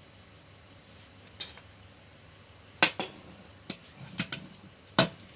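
Metal parts of a sewing-machine motor being handled as it is taken apart: a string of sharp metallic knocks and clinks, the loudest about three and five seconds in.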